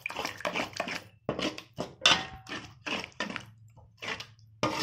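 Metal spoon stirring a wet masala paste in a metal pan, scraping across the bottom in quick repeated strokes, roughly two to three a second.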